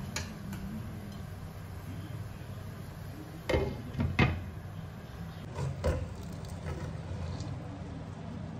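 Glass wok lid being set down over a steaming bowl, a few sharp knocks and clinks about halfway through, over the steady low sound of water boiling in the wok.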